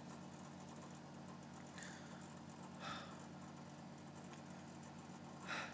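Faint steady low hum of room tone, with three brief soft scraping noises: two close together, about a second apart, and a third a little over two and a half seconds later.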